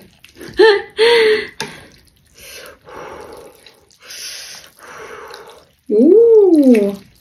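A person blowing on hot noodles in about four soft breathy puffs, between short vocal sounds: a brief utterance near the start and, near the end, one drawn-out vocal sound that rises then falls in pitch.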